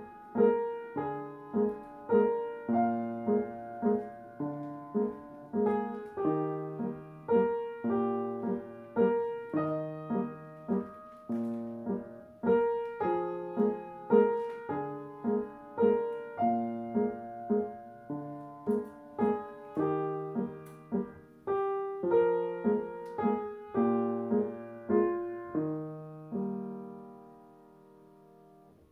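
Yamaha upright piano played four hands, child and teacher side by side: a simple piece in steady struck chords and melody notes. Near the end a final chord is held and rings away.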